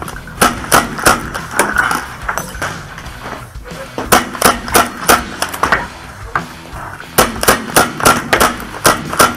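Paintball markers firing: three quick runs of sharp shots, about three a second.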